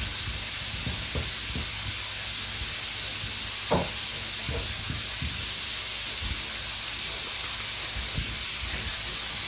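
Steady sizzling hiss of potato fries deep-frying in oil in a karahi, with a few light taps of a metal spoon against a steel pot, the sharpest a little under four seconds in.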